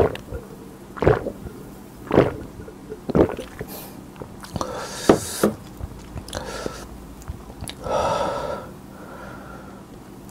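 A person gulping soda down in big swallows, about one a second for the first few seconds, then breathing out hard a couple of times after the drink.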